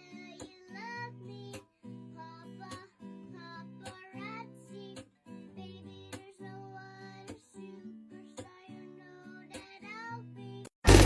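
Quiet background song: a high voice singing over plucked guitar and low notes. Near the end a much louder track cuts in suddenly.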